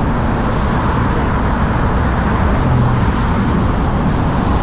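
Steady outdoor background noise, a low rumble with no distinct events.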